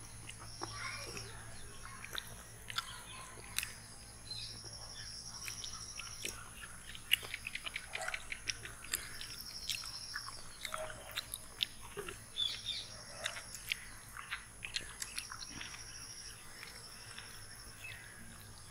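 People biting, chewing and sucking on frozen chocolate kulfi ice pops: scattered wet clicks and smacks. Behind them, a high wavering trill comes and goes every couple of seconds.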